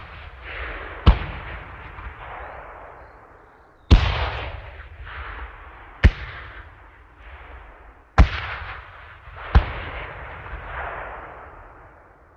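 A series of explosion blasts, five sharp bangs coming in loose pairs, each trailing into a long rolling rumble with crackle before fading out.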